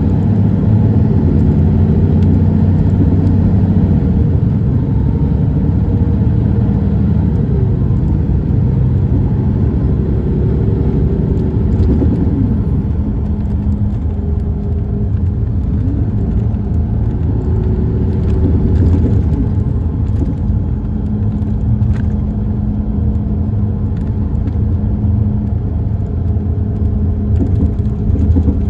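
Cummins ISX12 diesel engine of an MCI D4505 coach running under way, heard from inside the passenger cabin as a steady low rumble with road noise. The engine note changes pitch now and then, and a faint high whine sounds through the first half.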